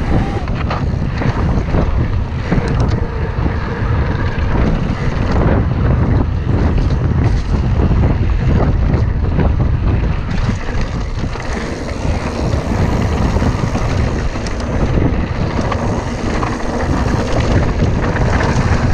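Wind rushing hard over an action camera's microphone on a mountain bike descending a dirt trail, with tyres crunching on gravel and frequent short knocks and rattles from the Mondraker Dusk RR bike over the rough ground.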